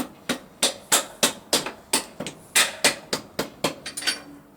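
Rubber mallet striking in a quick, even series, about three blows a second, driving the rear wheel spindle through. The blows stop near the end.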